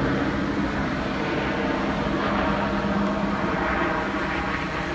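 A steady engine drone with a low hum, over a continuous rushing noise.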